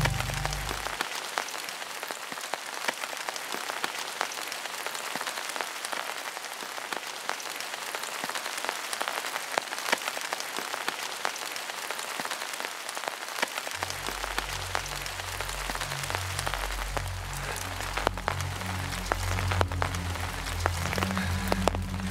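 Steady rain falling, an even hiss dotted with many small ticks of drops. A low hum comes in about two-thirds of the way through.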